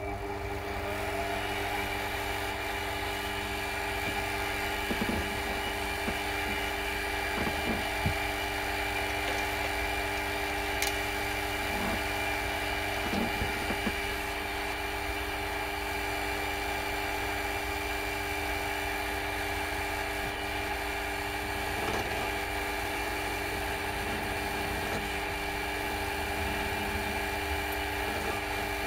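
Mini milling machine's spindle motor coming up to speed in the first second, then running steadily with a whine of several steady tones. A center drill in the spindle is being brought down onto a copper tube. A few light knocks are heard along the way.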